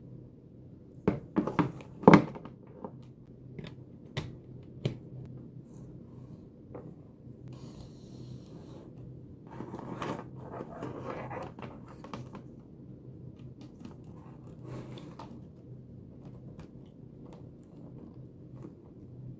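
Things being handled on a wooden desk: a few sharp knocks and clicks in the first couple of seconds, the loudest about two seconds in, then rustling and scraping as cables and a laptop are moved about. A steady low hum runs underneath.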